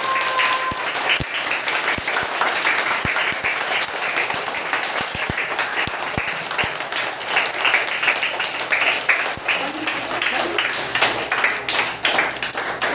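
A roomful of children clapping their hands, with many quick claps overlapping throughout.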